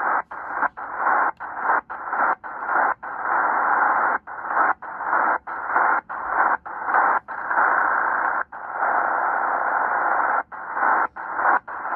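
Tecsun PL-330 shortwave receiver in upper-sideband mode giving band static as it is tuned, cut by many brief dropouts at irregular spacing. This is the radio's muting "chuff" between tuning steps.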